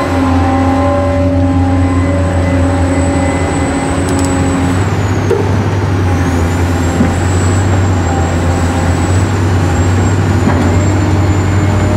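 Toy RC excavator's electric motors running as it digs and swings its arm, a steady low hum under a high thin whine that dips in pitch about halfway through and recovers.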